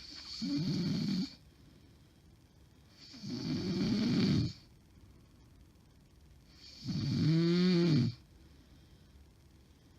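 A woman snoring heavily in her sleep, which the uploader takes for a sign of sleep apnea. Three loud snores come about three seconds apart, each building up and then stopping abruptly. The last carries a pitched, moan-like tone that rises and falls.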